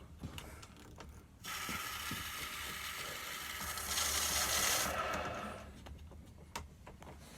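A mechanical whirring from a tool or mechanism, starting about a second and a half in and running for about four seconds, loudest shortly before it stops.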